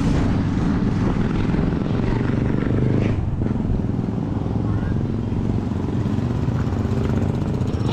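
A motor vehicle's engine running steadily close by, a low continuous rumble.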